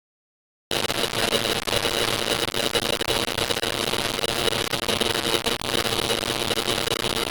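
Distorted signal sound effect: a dense crackling static with a steady buzz, starting abruptly a little under a second in.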